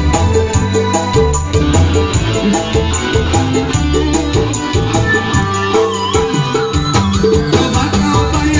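Live amplified band music led by a Korg electronic keyboard: a steady up-tempo rhythm with a tabla-like hand-drum pattern and shaker, a bass line and keyboard melody.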